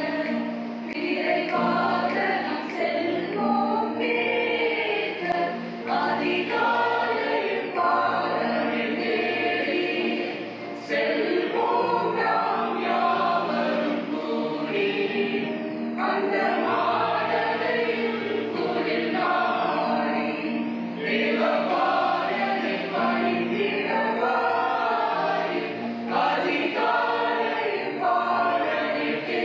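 Choir of young women and men singing a Tamil Christmas carol.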